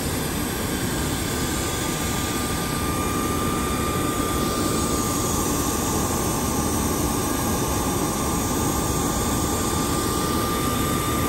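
Steady noise of aircraft ground machinery while a business jet is refuelled: a constant low rush with a thin, steady high whine.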